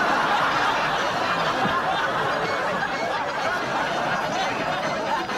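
Audience laughing steadily, many voices chuckling and laughing together.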